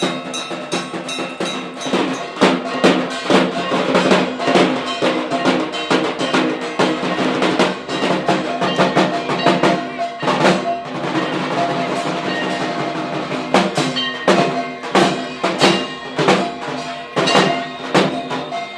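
Dhak drums beaten with sticks in fast, loud, repeated strokes, with a steady ringing drone of tones beneath.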